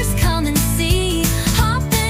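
Pop song playing as background music: a singing voice over a steady beat.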